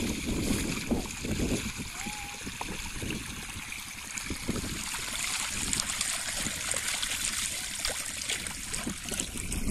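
Irrigation water pouring from the open end of a 4-inch lay-flat plastic pipe onto a jute sack and running into the furrows: a steady splashing and trickling.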